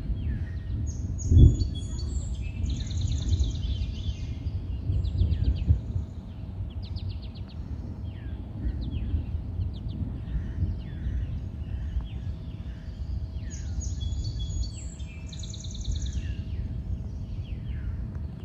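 Songbird singing outdoors, repeating the same complex phrase a second or so in and again near the end, with other short chirps between, over a constant low rumble. A loud dull thump about a second and a half in.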